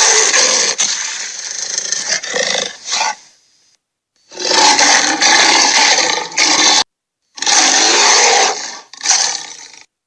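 Dinosaur roar sound effects: three long, harsh roars one after another, the first already under way, with short silent breaks between them.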